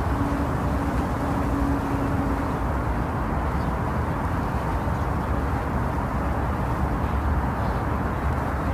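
Steady, muffled rumbling noise: white noise shaped to imitate the sound inside the womb, deep with little hiss on top. A faint hum sits in it for the first two seconds or so.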